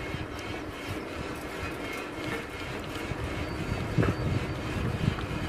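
Riding noise from a beach cruiser bicycle: wind rumbling on the microphone, tyres rolling on asphalt and a light rattle from the bike, with a brief louder bump about four seconds in.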